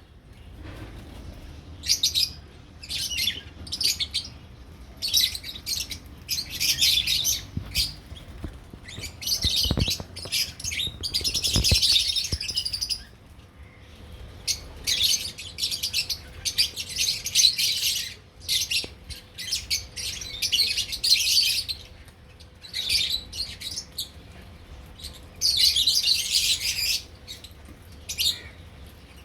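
Lovebirds chattering in repeated bursts of shrill, high chirps, with short pauses between bursts.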